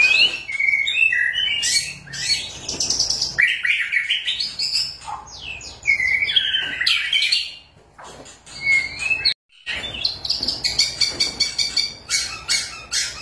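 White-rumped shama (murai batu) in full song: loud, varied whistled phrases that glide up and down, a brief break about nine seconds in, then fast clicking, chattering notes near the end.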